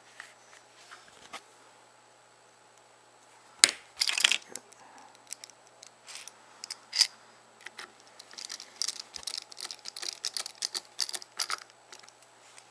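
Small clicks and taps from handling a disassembled BlackBerry 8330's plastic housing parts and a small screwdriver during reassembly. There is a sharp click about three and a half seconds in, then a run of quick light clicks in the second half.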